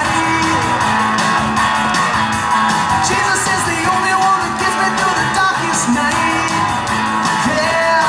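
Upbeat recorded song with a singing voice over guitar and drums.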